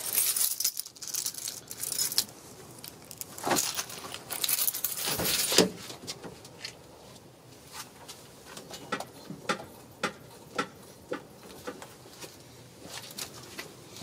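Front suspension of a 2002 Honda Civic clunking on the driver's side as the car body is rocked by hand. A couple of heavier knocks come a few seconds in, then lighter clunks about twice a second.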